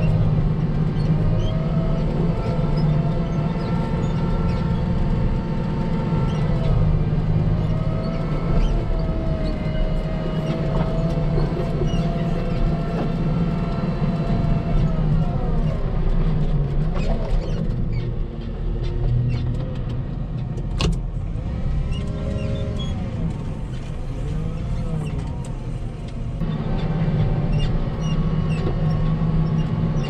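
Volvo L60H wheel loader's diesel engine working steadily as its V-plow pushes through deep snow drifts, with whines that rise and fall in pitch. It eases off for several seconds past the middle, and there is a single sharp click.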